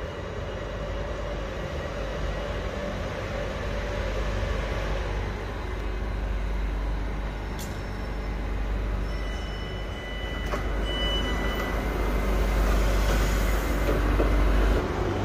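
Bangkok Airport Rail Link City Line train at the platform, a steady rumble that grows louder toward the end, with a brief thin high tone past the middle.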